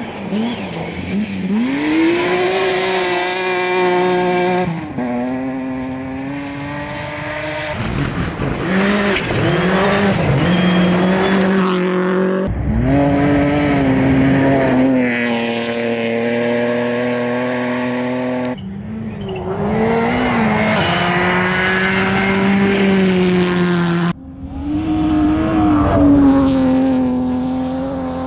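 Rally cars at full throttle on a gravel stage, one after another in short cuts: each engine revs high and steady, then dips and picks up again through the gear changes and lifts.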